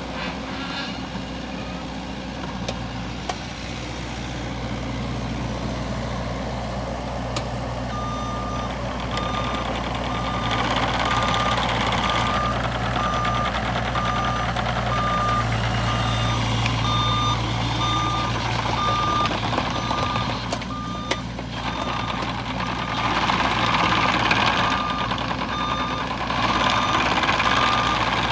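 A Bobcat E26 mini excavator's diesel engine running steadily while the machine travels on its rubber tracks. From about eight seconds in, its travel alarm beeps repeatedly at an even pace.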